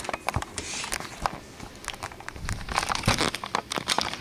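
Handling noise: scattered sharp clicks and short crinkling rustles, as small plastic toy figures and props are moved about by hand.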